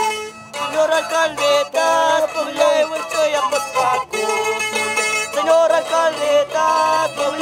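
Traditional Andean carnival music played live: long wooden flutes carry a melody that bends and shifts in pitch over plucked strings.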